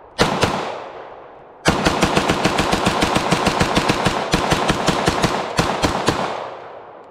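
B&T APC9K Pro semi-automatic 9mm pistol being fired: two shots, a pause of about a second, then a fast, steady string of shots for about four and a half seconds, emptying a 30-round magazine, the last reports ringing out and fading.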